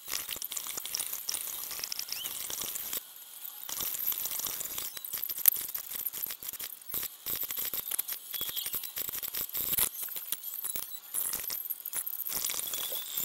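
Glitchy 'data crunching' sound effect: a dense run of high-pitched digital crackles, clicks and small squeaks over a hiss, with a brief lull about three seconds in and one sharp click about five and a half seconds in.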